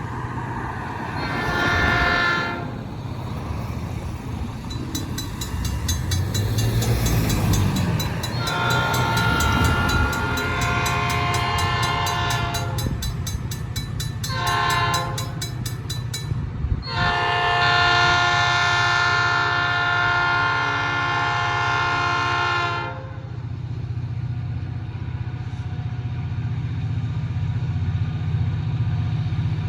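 EMD SD40-2 diesel locomotive's air horn blowing four blasts for a grade crossing, short, long, short, long, the last about six seconds. Under it runs the steady low drone of the locomotive's 16-cylinder two-stroke diesel working hard to pull a dozen loaded rock cars up a steep grade.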